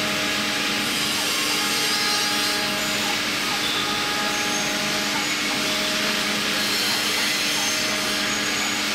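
Mini 5-axis CNC milling machine running, with a steady spindle hum and hiss.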